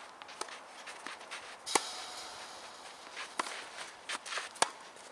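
Scattered sharp knocks and scuffing footsteps of players moving about a clay tennis court between points, at irregular intervals; the loudest knock, about two seconds in, is followed by a brief hiss.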